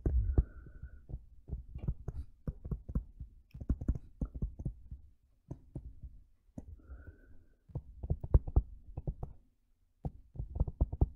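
A stylus writing on a tablet screen, heard as a quick, irregular run of soft taps and knocks, several a second, with a brief pause near the end.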